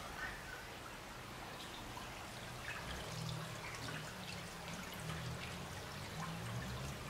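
Shallow brook trickling and splashing over stones, a steady babble of running water with many small drips and splashes.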